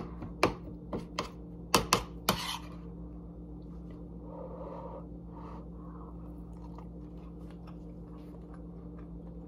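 A metal fork clinking and scraping on a ceramic plate several times in the first couple of seconds while scooping up cauliflower-rice casserole, then a person chewing a mouthful. A steady low hum runs underneath.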